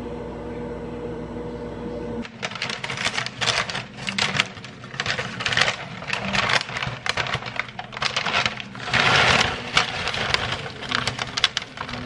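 A microwave oven runs with a steady hum for about two seconds. Then a brown paper bag of freshly popped popcorn crinkles and the popcorn is poured into a glass bowl, a dense run of rustling and light crackling with louder pours near the middle and end.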